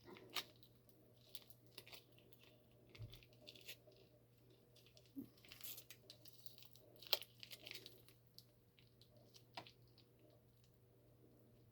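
Faint kitchen handling noises: scattered soft clicks and rustles. The sharpest click comes about seven seconds in.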